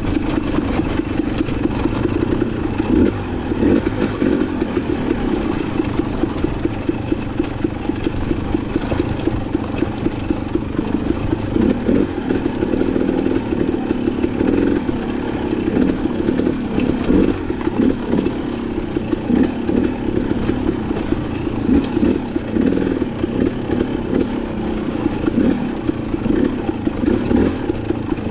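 Dirt bike engine running, its note rising and falling with the throttle, with frequent short knocks and clatter over the top.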